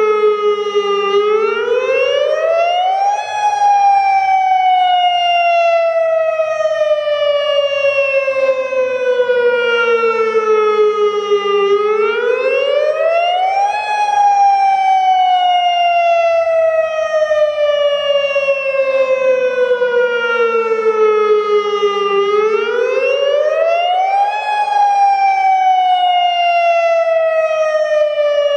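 Federal Signal Modulator 6048 electronic outdoor warning siren, which has some blown drivers, sounding a loud wail: the pitch rises quickly over about two seconds and then falls slowly over about eight, three times. This rising and falling wail is the Attack signal of its test cycle.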